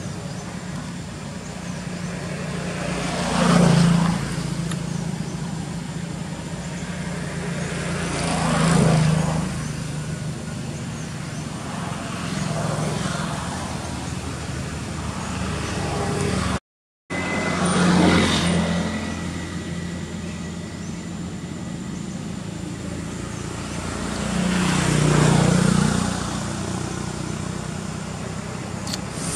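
Road traffic: vehicles passing one after another, each swelling up and fading over a second or two, five passes over a steady low rumble. The sound cuts out for a moment about halfway through.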